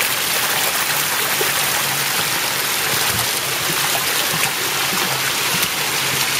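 Floodwater rushing steadily, an even, unbroken running-water noise.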